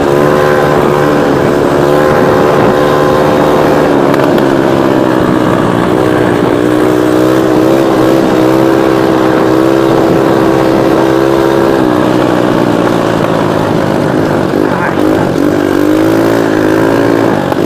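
125cc ATV engine running under load at speed. Its pitch holds steady, drops about two-thirds of the way through, then rises and falls several times near the end as the throttle changes.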